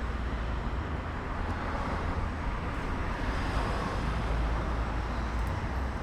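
AI-generated sound effect from ElevenLabs played back: a steady, noisy ambience with a deep rumble underneath.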